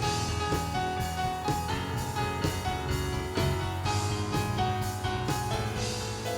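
Live worship band playing an instrumental break between sung choruses, with keyboard or piano chords, bass and a steady drum-kit beat.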